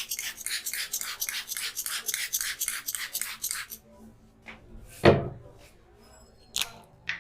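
Barber's scissors snipping rapidly, about four snips a second, stopping a little under four seconds in. A single loud thump follows about five seconds in, then two short clicks near the end.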